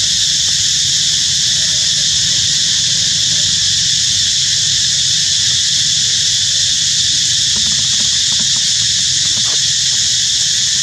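A steady, high-pitched insect drone, with faint soft monkey calls in the first half and a few light clicks near the end.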